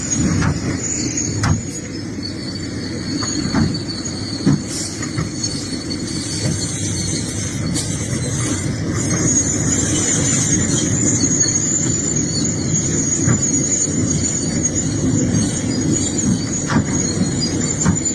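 Excavator at work: its diesel engine runs steadily under load, with a steady high-pitched squeal over it and a few light knocks.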